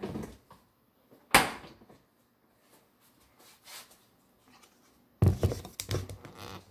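A kitchen cupboard door knocks shut once, sharply, about a second and a half in. Near the end comes a spell of clattering handling noise as the plastic blender jar is picked up and moved close by.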